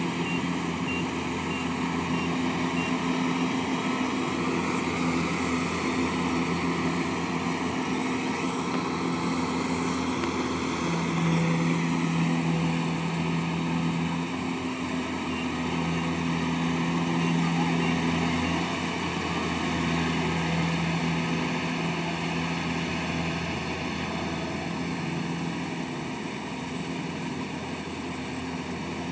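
Tracked rice combine harvester's diesel engine running steadily under load, with the threshing and cutting machinery whirring over it. The low engine note shifts a little partway through.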